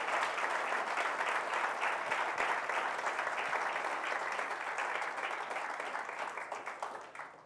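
Audience applauding, a dense patter of many hands clapping that gradually thins and dies away near the end.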